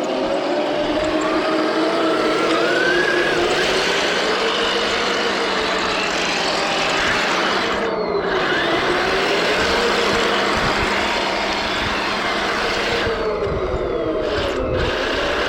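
Toy RC M1A2 Abrams tank running, a steady whirring with a whine that rises and falls in pitch as it drives.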